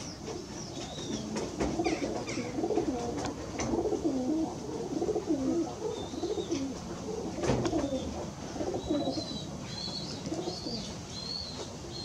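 Domestic pigeons cooing, many low overlapping coos one after another, with high short chirps joining near the end and a single sharp click about seven and a half seconds in.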